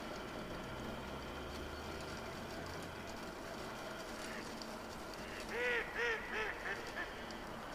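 A duck quacking: a quick run of about five quacks, the first ones loudest, trailing off, over a faint steady background.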